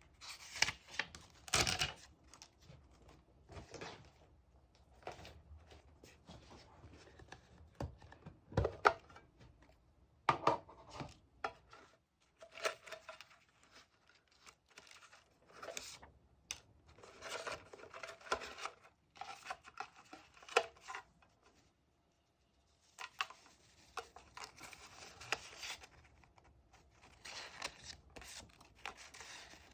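Paper and stationery being handled for scrapbook diary decorating: rustling, tearing and cutting of paper in irregular bursts, with a brief pause about two-thirds of the way through.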